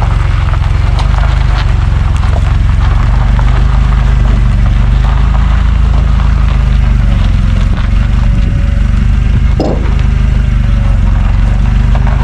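A vehicle engine idling steadily, with a single knock about ten seconds in.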